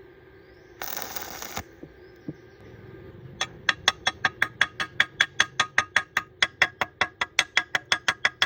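A short burst of hiss about a second in, then rapid, even metallic strikes, about five a second, each with a brief ring, like metal being tapped quickly with a hammer.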